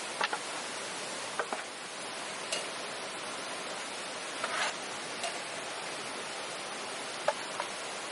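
A steady rushing hiss with scattered light clicks and taps, about eight of them, irregularly spaced; the sharpest comes near the end.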